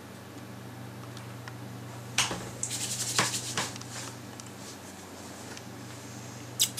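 A boerboel shifting about right beside the microphone: rustling, with rapid clinking from its chain collar about two seconds in that lasts about a second and a half, and a sharp click near the end. A low hum sits underneath.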